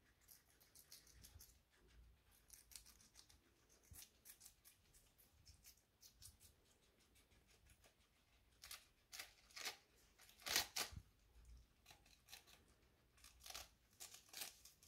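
Guinea pigs eating iceberg lettuce: quick, crisp crunching bites and snips, coming thicker and louder near the end, the loudest bite about ten and a half seconds in.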